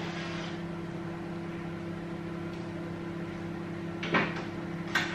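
Wrench work on the front anti-roll bar bolts under a car on a lift: a short clunk about four seconds in and a sharp click near the end, over a steady hum.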